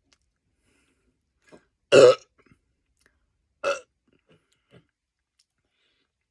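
A person belching twice after chugging a carbonated Coke: a loud belch about two seconds in, then a shorter, weaker one about a second and a half later, with a few faint clicks around them.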